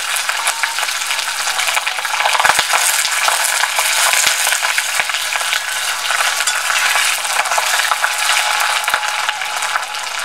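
Sliced onions sizzling and crackling in hot oil in a black iron kadai as they are stirred with a steel ladle, frying toward brown. A few sharp clicks of the ladle against the pan sound over the sizzle.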